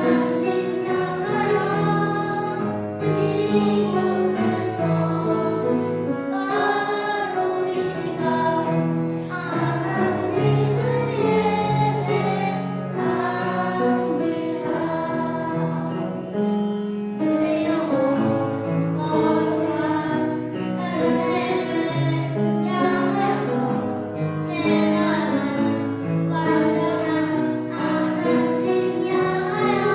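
Children singing a gospel worship song together with an instrumental accompaniment.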